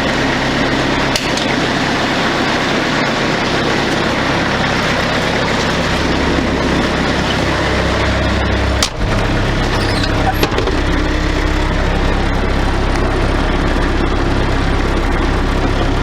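An engine running steadily under a rushing noise, with a brief break about nine seconds in.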